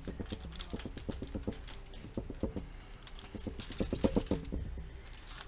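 A kitchen knife scoring the scaled skin of a whole white bass, heard as quick irregular scratching and clicking strokes in clusters, thickest about two and four seconds in.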